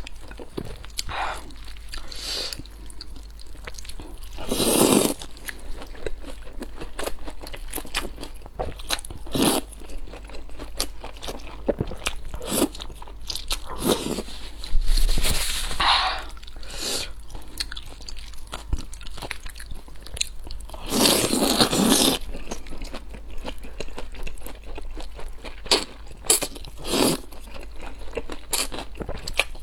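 Close-miked eating: crunchy bites and chewing on food, short crackly crunches through the whole stretch with a few louder, longer bites.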